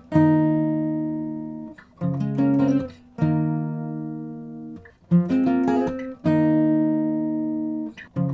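Background music: an acoustic guitar strumming six chords, each left to ring and fade before the next.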